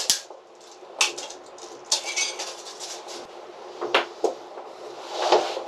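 Hand tools being handled: a few sharp clicks and light knocks spread out, with some scraping between them.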